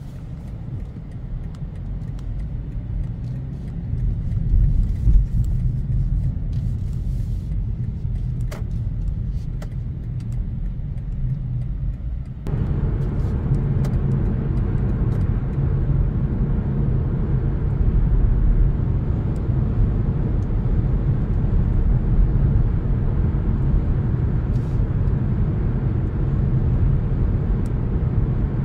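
BMW 520d (G60), a four-cylinder diesel, driving along: a steady low rumble of engine and road noise that grows over the first few seconds. About twelve seconds in, the higher road and tyre noise steps up suddenly and then holds steady.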